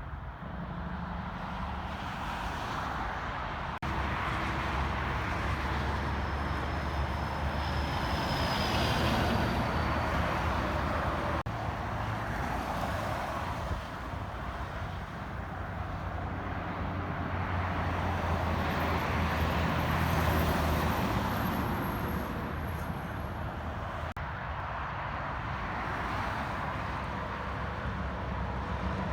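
Road traffic passing: a steady run of vehicles with engine and tyre noise swelling and fading, loudest about nine and twenty seconds in.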